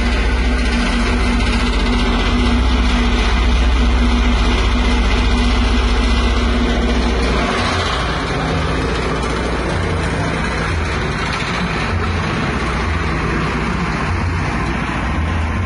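Livestock feed mixer running, its drive motor and the paddles turning in the steel trough giving a steady mechanical hum. About halfway through, the low hum turns uneven and comes and goes.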